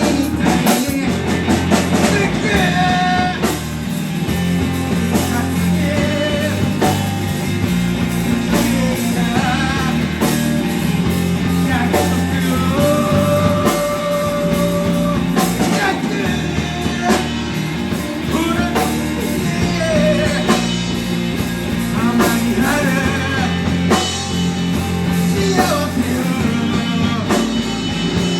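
A rock band playing live with a singer, with drums, bass and guitar.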